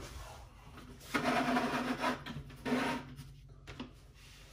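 Rubbing and scraping handling noise from a monitor-arm base being shifted on the desktop to centre it. It comes in three short bursts in the first three seconds.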